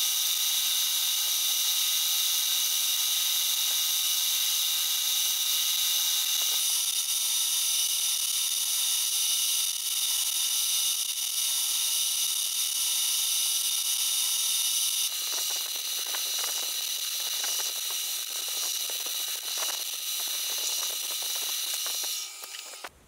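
Milling machine spindle running with a small disc cutter gouging gear teeth into an acetal blank: a steady high whine made of many tones. From about two thirds of the way through, an irregular crackle of cutting joins it. It stops abruptly just before the end.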